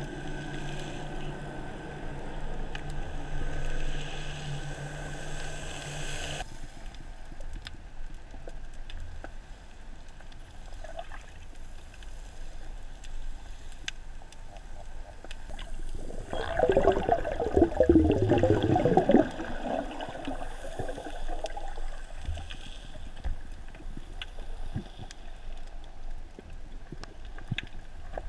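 Underwater sound through a GoPro's waterproof housing: a steady low engine drone, typical of a boat motor heard through water, cuts off sharply about six seconds in, leaving faint water noise with scattered clicks. About sixteen seconds in comes a loud burst of bubbling and gurgling lasting about three seconds.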